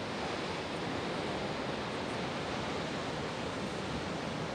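Sea surf breaking against a rocky cliff shore, a steady rushing wash of waves picked up by a phone's microphone.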